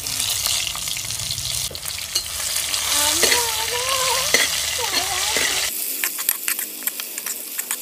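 Sliced tomatoes and green chillies sizzling in hot coconut oil in a clay cooking pot as a steel ladle stirs them. Near the end the sizzle thins to scattered crackles.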